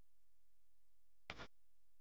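Near silence, broken by one brief faint burst of noise a little past halfway.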